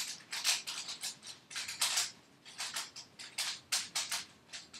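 3x3 Rubik's Cube being scrambled: its plastic layers turned quickly one after another, a rapid run of short clicking, rasping turns about three a second.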